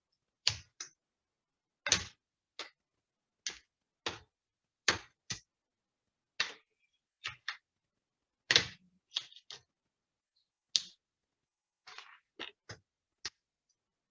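Plastic screen-bezel clips on an Acer Aspire 5 laptop snapping loose under a pry tool: about twenty sharp clicks at irregular intervals, some in quick pairs or threes.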